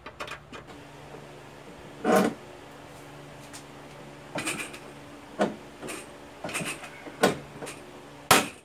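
Hand pop-rivet gun setting a rivet through a window regulator in a steel car door: a run of sharp metallic clicks and clunks as the handles are worked, the loudest about two seconds in and near the end.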